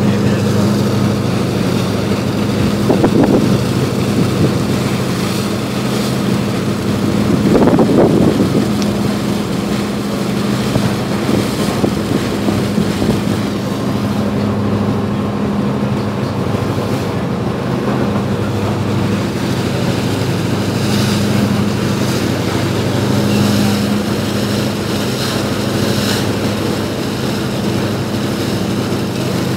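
Diesel engine of a Tagus passenger ferry running steadily underway: a low, even drone with several fixed tones, over the rush of water and wind. Two brief louder gusts of wind hit the microphone about three and eight seconds in.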